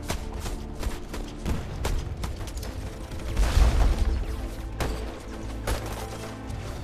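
Film battle soundtrack: scattered rifle and machine-gun shots over a dramatic music score, with a loud explosion about three and a half seconds in.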